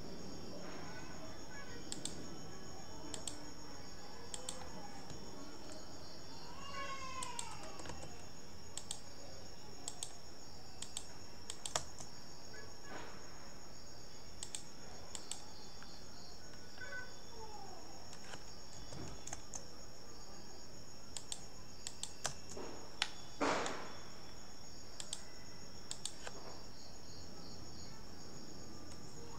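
Scattered computer keyboard keystrokes and mouse clicks from CAD drafting work, over a steady high-pitched background whine, with one short louder rustle near the end.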